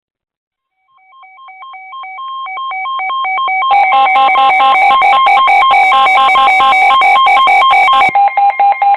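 Weather alert radios sounding their alarms for an incoming weather warning. One radio's pulsing beeps start about a second in and grow louder, more alarms join about four seconds in, and one cuts off near the end, leaving a single steady pulsing beep.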